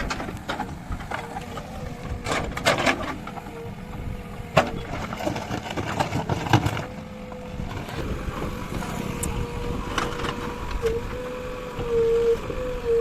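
JCB 3DX backhoe loader working, with a steady whine from the machine and scattered knocks and clanks.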